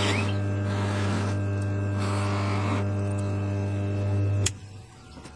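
Electric bench buffer motor running with a steady hum while a cotton buffing wheel polishes a brass night-latch part, with hissing swells each time the brass is pressed to the wheel. About four and a half seconds in, the motor is switched off with a click and the hum cuts out.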